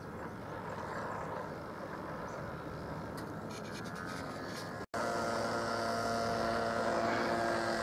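Super Tigre .46 two-stroke glow engine of a radio-controlled Ultimate biplane running at a steady idle as the model taxis on a dirt strip. After a cut about five seconds in, the idle note is steadier and louder.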